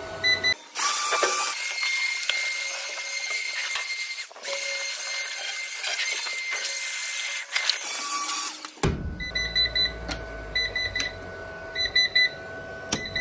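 MPP Solar PIP2424HS inverter's alarm beeping in quick repeating groups of short high beeps: error code 1, the warning of a failed cooling fan. For most of the middle a steady hiss covers the beeping, which comes back clear with a low hum near the end.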